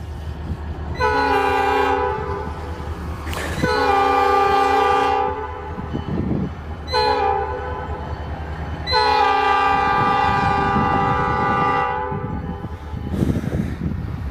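EMD SD40-2 locomotive's multi-chime air horn sounding the grade-crossing signal: two long blasts, a short one, then a long one, over a steady low rumble.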